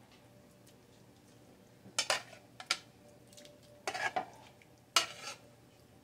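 Metal kitchen tongs clicking and clattering against a plate and the rim of a pot while chicken pieces are moved into gravy: a few short, sharp clinks about two, three, four and five seconds in, quiet between them.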